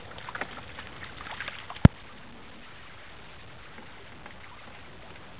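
A hooked brown trout splashing and thrashing at the water's surface beside a boat, in short splashes over the first two seconds, then a single sharp, loud knock. Afterwards only a steady hiss of wind and water remains.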